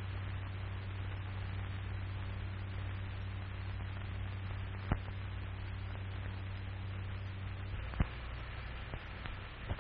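Steady hiss and low hum of an old 1940s film soundtrack with no speech or music, broken by a sharp click about halfway through and two more near the end; the hum shifts slightly at the second click.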